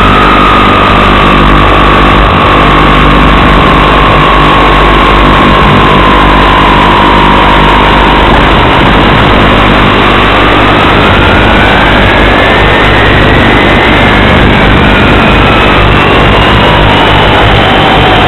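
Loud steady hiss on a model airplane's onboard FPV recording, with two faint whistling tones gliding slowly in pitch, one rising and one falling, that cross each other about two-thirds of the way through.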